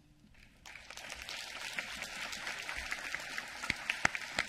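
Audience applauding in an auditorium. The applause breaks out about half a second in, after a moment of near quiet, and a few single claps stand out sharply near the end.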